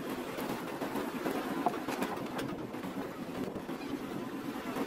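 A dense mass of small fish thrashing and splashing at the surface inside a fishing net drawn up against a boat: a steady rushing of water with a few sharper splashes.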